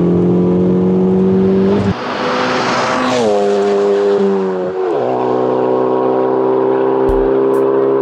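Ford Focus ST's turbocharged 2.0-litre four-cylinder running through a Stainless Works 3-inch stainless steel downpipe and exhaust under acceleration. The engine note climbs slightly, swells with a rush about three seconds in, then drops sharply in pitch twice before settling into a steady drone.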